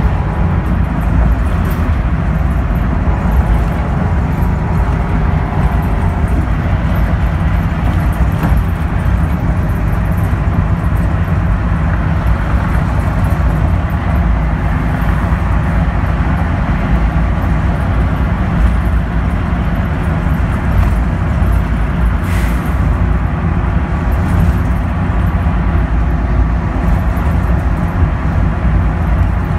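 Cabin sound of a NABI 42-BRT transit bus cruising at freeway speed: a steady low drone from its Cummins Westport ISL G natural-gas engine and the road, with one short click about three-quarters of the way through.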